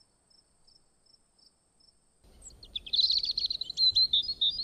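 Faint crickets chirping in a steady, regular rhythm, then about two seconds in a chorus of birds comes in with quick chirps and trills that become the loudest sound, over a low outdoor background noise.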